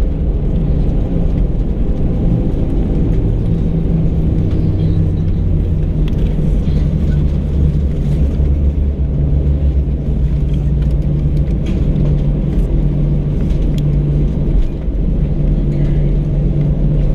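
Steady low rumble inside the cabin of an Airbus A319 airliner on the ground just after landing: engine and rolling wheel noise heard from a window seat.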